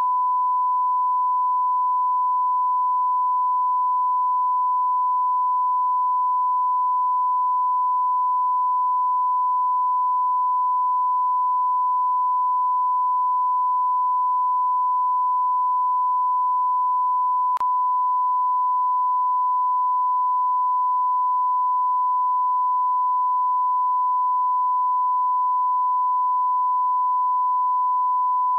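Continuous 1 kHz sine-wave line-up tone, a single pure pitch held at a constant level without a break: the reference tone that accompanies a television test card.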